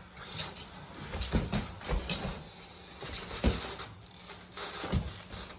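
A steel rolling tool cabinet being tipped up onto its end on a wood floor: a series of dull thumps and knocks, the loudest about three and a half seconds in.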